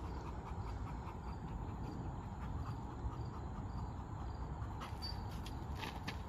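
Outdoor ambience: insects chirping faintly in short repeated calls over a steady low rumble.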